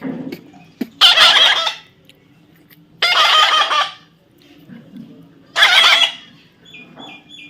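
Pet parrot screeching three times, each harsh call lasting about a second, with short pauses between.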